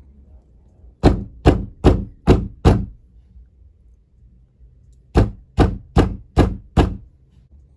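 A fist knocking on a wooden door: two rounds of five evenly spaced knocks, about two and a half a second, with a pause of a couple of seconds between the rounds.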